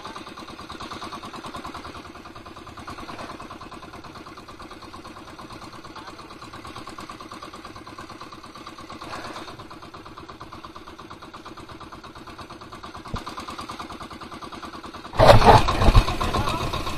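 Small outrigger boat's engine running steadily with an even, rapid pulse. A click comes about 13 seconds in, and a loud rush of noise begins about 15 seconds in and runs on to the end.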